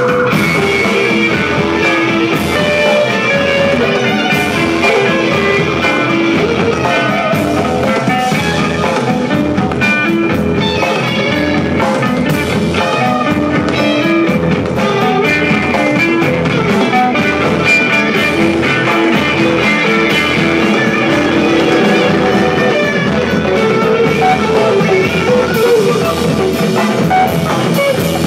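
Live psychedelic rock band playing loud: electric guitar riffing in short stepped notes over bass and a drum kit keeping a steady beat.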